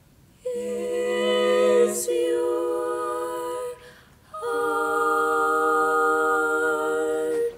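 Female barbershop quartet singing a cappella: a chord held for about three seconds, a short break, then a second sustained chord held about three seconds and cut off together, the song's closing chord.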